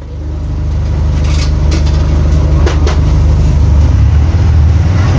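Cummins Interact 4.0 four-cylinder inline diesel in a bus, running with a steady low drone that builds up over the first second and grows a little stronger past the middle. A few short rattles or clicks sound around the midpoint.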